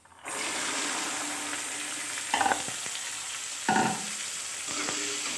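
Green peas dropped into hot mustard oil in an aluminium kadhai: a sudden sizzle about a quarter second in that settles into a steady frying hiss. It turns briefly louder twice.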